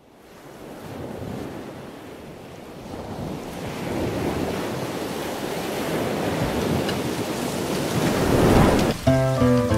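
Steady rushing roar of a large waterfall, fading in from silence and growing louder. Music comes in near the end.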